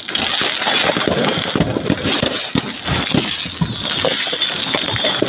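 Fireworks crackling: a dense, irregular stream of small pops over a steady hiss.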